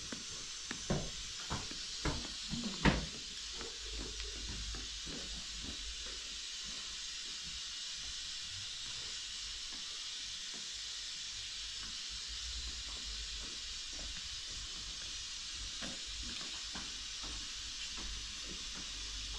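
Steady hiss with a few light clicks and knocks in the first few seconds, one sharper click about three seconds in.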